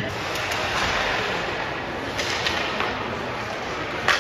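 Ice hockey practice: the steady scrape and hiss of skates on ice with a few light clicks of sticks and pucks, and one sharp crack of a stick or puck strike near the end.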